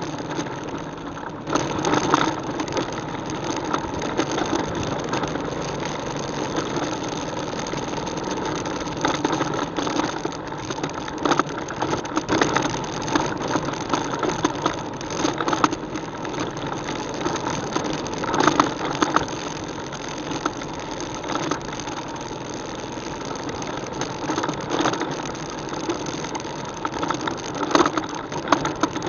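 ATV engine running while the quad is ridden along a trail, with frequent irregular rattles and knocks.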